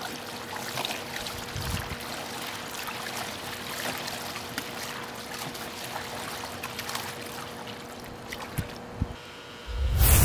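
Hands stirring soapy water thickened with cornstarch in a plastic wading pool: steady sloshing and splashing with small splats. Near the end a much louder sound with a low rumble cuts in.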